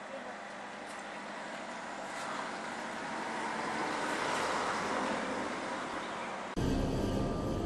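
A broad rushing noise that swells over about four seconds and eases off slightly. About six and a half seconds in it switches suddenly to a louder, deep rumble.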